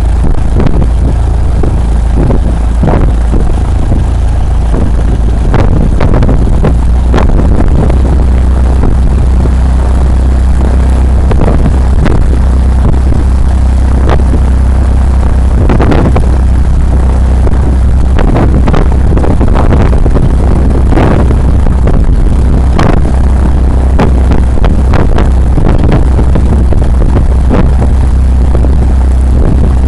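Single-engine light aircraft's propeller engine idling with a steady low drone, heard through an outside-mounted camera, with irregular gusts of wind buffeting the microphone.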